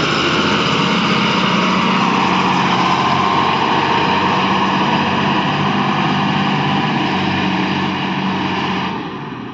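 Tipper truck's engine running loud and steady during unloading, its level falling off near the end.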